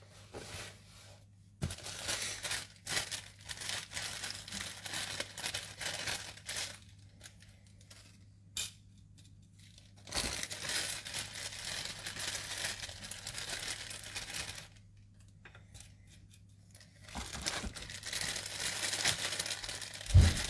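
Plastic wrapping crinkling and tearing in three separate bursts as artificial succulents are unpacked, with a single sharp knock near the end.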